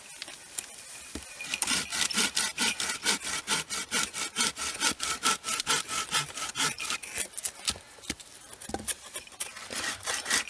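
Small fixed-blade knife shaving a wooden stick into a feather stick for fire tinder: quick repeated scraping strokes of the blade along the wood, about four to five a second, becoming sparser after about seven seconds.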